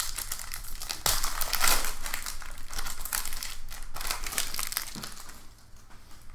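Foil wrapper of a trading-card pack being torn open and crinkled by hand. The dense crinkling thins out about five seconds in as the cards are slid out.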